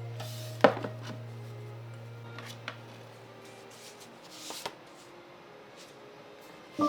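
Sharp taps and clacks of small objects being handled and set down on a bookshelf, the loudest knock about half a second in, with a short rustle a little after four seconds. A low music drone fades out underneath, and a new piano tune starts near the end.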